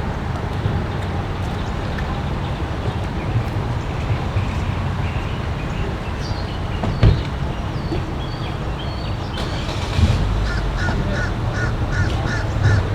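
Steady low rumble of vehicles, with a single knock about seven seconds in. Near the end a crow caws in a quick run of about seven short calls.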